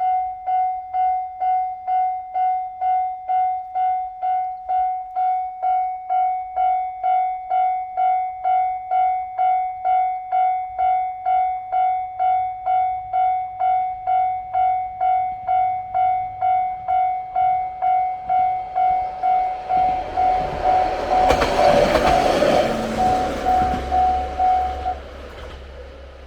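Japanese railroad-crossing alarm ringing its repeated 'kan-kan' tone at just under two strokes a second. About 20 seconds in, a single-car Shigaraki Kohgen Railway diesel railcar passes over the crossing, its rumble and wheel noise loudest a couple of seconds later, and the alarm stops shortly before the end.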